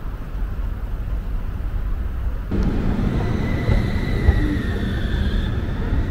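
Light rail tram running with a steady low rumble; about two and a half seconds in the sound changes abruptly and a faint high whine comes in, drifting slightly in pitch.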